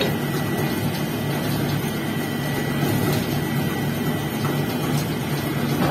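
Steady low machine drone at an even level, with a faint constant high whine over it.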